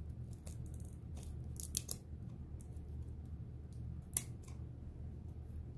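Small scissors snipping decorative tape wrapped around a metal canning jar ring: a scattering of short, sharp snips, the loudest about four seconds in, over a low steady hum.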